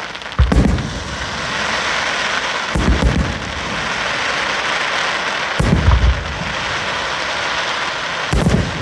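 Aerial fireworks shells bursting: four deep booms about every two and a half to three seconds, the second one doubled, over a steady hiss.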